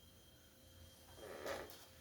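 Faint room tone, then a short breathy sound about a second and a half in: a person's breath.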